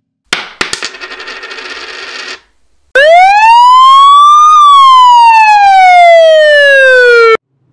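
Two stock comedy sound effects. The first is a few sharp clicks and about two seconds of metallic rattling. The second is a loud whistle-like tone that glides up for about a second and a half, then slides slowly back down for three seconds and cuts off suddenly.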